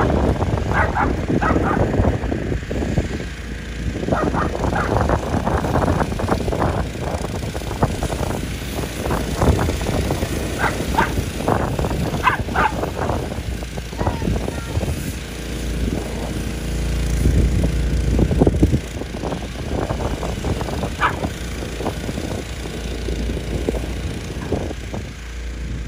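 A dog barking and yipping again and again as it chases a radio-controlled toy car, with the small car's motor running underneath.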